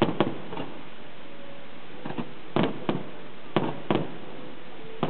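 Aerial fireworks shells bursting: about ten sharp bangs, several in quick pairs, the loudest right at the start, over a steady hiss.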